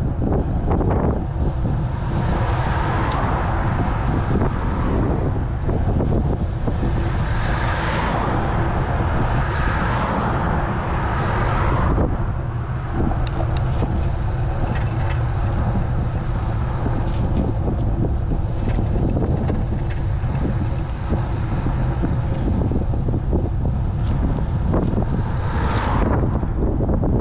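Wind buffeting the microphone of a bicycle-mounted camera at riding speed, a steady low rumble. Over it, road and traffic hiss swells and fades a few times.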